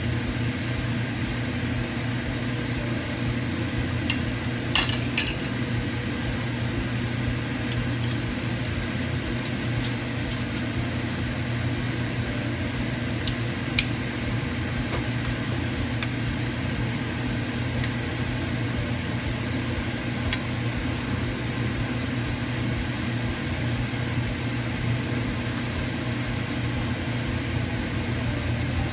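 Spaghetti being tossed in a nonstick frying pan with a wooden spatula, with a few sharp taps of the utensil on the pan about five seconds in and again near the middle, over a steady low mechanical hum.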